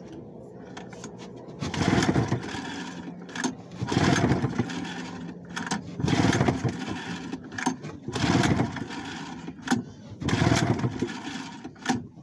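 Old outboard motor being pull-started: about five cranking pulls on the recoil starter cord, roughly two seconds apart, and the engine does not catch. Its plugs are dry, which the owner takes as fuel not getting through.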